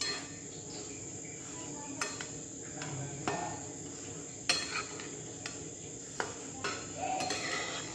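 A spatula stirring grated fresh coconut and jaggery in a steel kadhai, with scattered scrapes and clinks against the pan, over a steady high-pitched whine.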